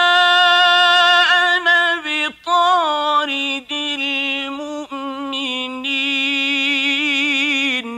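Male Quran reciter chanting in tajweed style: one long melismatic phrase, held high and steady at first, then stepping lower with a few short breaks. It ends in quick wavering ornamental turns and stops abruptly.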